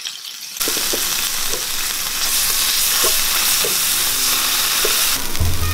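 Diced onions and capsicum sizzling in butter in a non-stick frying pan, with a spoonful of curd just added, as a spatula stirs and scrapes through them now and then. The sizzle comes in suddenly about half a second in and stays steady.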